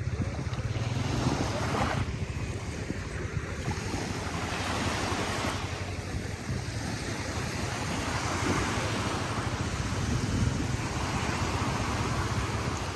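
Caspian Sea waves washing on the shore, the noise swelling and easing every few seconds, with wind rumbling on the microphone.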